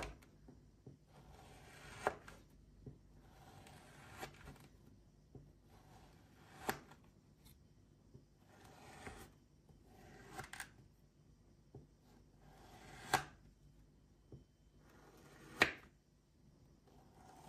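A small knife slicing through moulded kinetic sand, cut after cut about every two seconds: each stroke a soft gritty rasp that ends in a sharp tap as the blade reaches the surface underneath.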